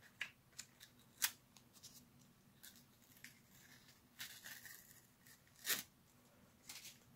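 Masking tape being peeled off a spray-painted plastic blaster shell: a string of short, sharp rips, the loudest a little over a second in and near six seconds in, with a longer tear just past the middle.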